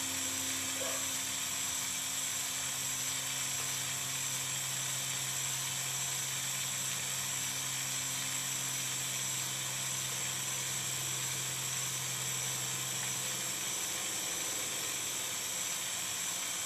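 Handheld mini torch burning with a steady hiss under a cloisonné enamel piece on a mesh firing screen, heating the enamel until it starts to fuse.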